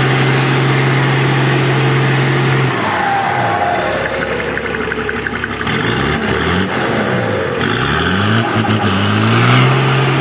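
Mack truck's diesel engine straining in four-wheel drive on a muddy climb: held at steady high revs, sagging low about four seconds in, then revved up and down several times before settling back to steady high revs near the end.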